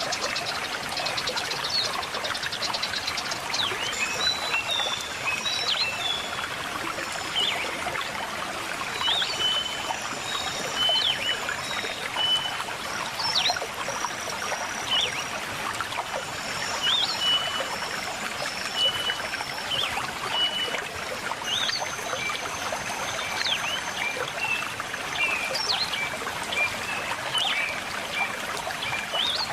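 River water flowing and trickling, with birds chirping over it: many short chirps and a few longer, thin high whistles.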